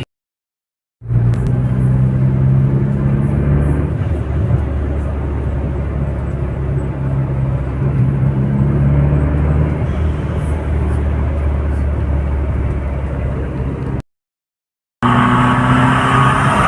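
Car cabin noise while driving: a steady low engine drone over road noise. The sound cuts out completely for about a second at the start and again near the end, and comes back brighter after the second gap.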